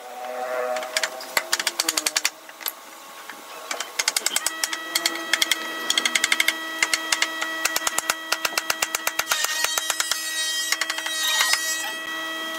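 Hammer tapping on the wooden door frame and panels in quick runs of light knocks, several a second, as the joints are driven together, over steady tones.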